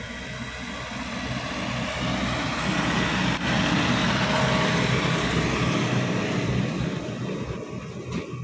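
Diesel farm tractor pulling two loaded sugarcane trailers drives past, its engine rumble growing louder to a peak about halfway through, then fading as it moves away.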